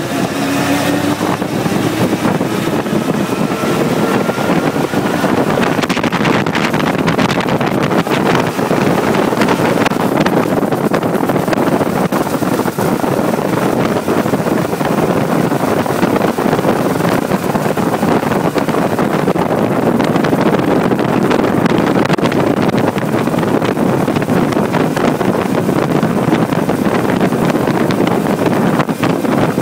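Brasier Brooklands record-breaking car's engine running at speed, heard from on board under heavy wind rush across the microphone. The engine note climbs in the first couple of seconds, then holds steady.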